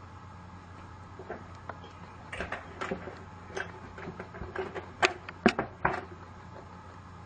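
Toy train set clattering: irregular plastic clicks and clacks over a steady hum, the three loudest knocks coming about five to six seconds in.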